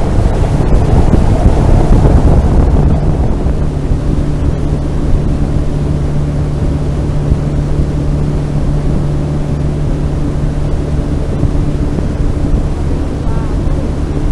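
Outboard motor of a small aluminium boat running steadily at speed, with water rushing along the hull and wind buffeting the microphone. The rush of water and spray is loudest for the first two or three seconds, after which the motor's steady hum stands out.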